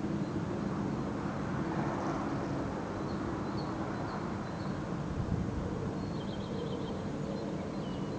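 Steady low industrial hum from a paper mill, with the noise of a passing car swelling and fading. Faint bird chirps sound above it, then a short high trill near the end.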